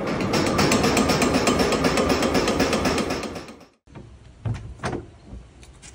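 Mill flour sifter running, its beaters rapping the stacked sieves in a fast, even clatter of knocks that cuts off suddenly past the middle. After it, two quieter knocks from a wooden door being handled.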